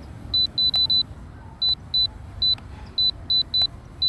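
About a dozen short, high beeps, irregularly spaced and sometimes in quick runs, from the L500 Pro drone's controller as the camera-tilt control is worked. A low wind rumble on the microphone runs underneath.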